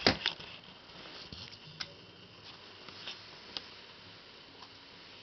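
Camera handling knocks as the camera is swung around, two sharp ones right at the start, followed by a few faint, scattered light ticks.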